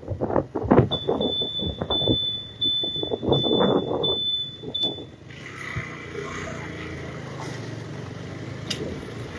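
Motor scooter riding along a rough town street, its engine and road noise steady, with a high electronic beep sounding in short pieces from about a second in until about five seconds in.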